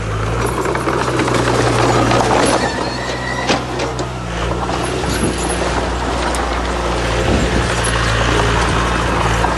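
Heavy diesel earthmoving machinery running steadily under load, with a rough rattling, scraping noise over the engine and a sharp clank about three and a half seconds in.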